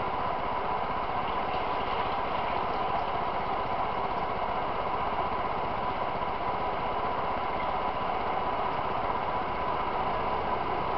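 A steady machine hum with a constant high whine through it, unchanging throughout.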